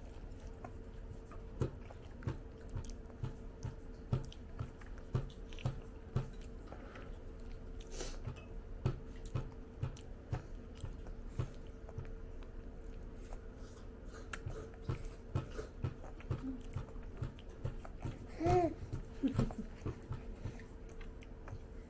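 A toddler chewing food close to the microphone: irregular soft mouth clicks and smacks over a faint steady hum. A short voiced sound comes about three-quarters of the way in.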